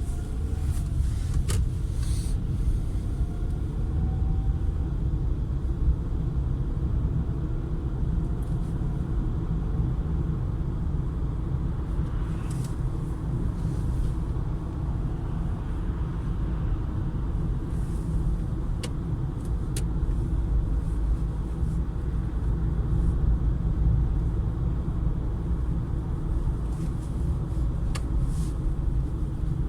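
2012 Peugeot 408 on the move, a steady low road and running rumble with a few sharp knocks scattered through it. The knocks are the knock from the front end that the owner is chasing.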